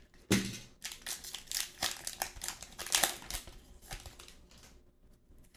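Crinkling of a foil trading-card pack wrapper being handled and opened: irregular crackles and rustles that thin out over the last second or so.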